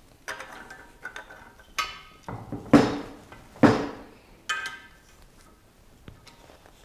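Steel hand tools (a T-handle hex key and a screwdriver) clinking and knocking against each other and an aluminium extrusion frame. About six sharp clinks and knocks over roughly four seconds, some with a brief metallic ring; the loudest two come about a second apart near the middle.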